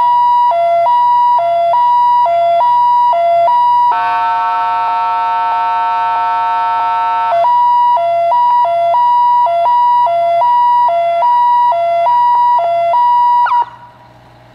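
Federal Signal PA300 electronic siren on a 1991 Seagrave fire engine sounding a loud two-tone hi-lo, stepping between a high and a low note a little over once a second. About four seconds in it switches for roughly three seconds to one steady buzzing tone, then returns to hi-lo. Near the end it drops in pitch and cuts off, leaving the engine's low hum.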